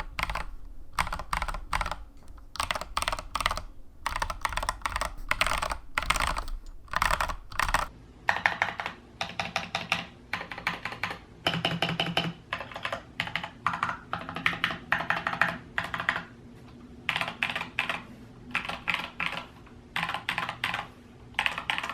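Typing on a GamaKay LK67 65% mechanical keyboard fitted with Feker Holy Panda tactile switches and PBT XDA keycaps, in quick runs of keystrokes broken by short pauses. The builder finds the case sound somewhat hollow.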